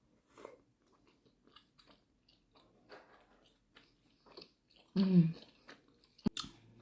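Close-up wet chewing and small mouth clicks of someone eating a dumpling, with a brief pitched hum about five seconds in and a sharp click near the end.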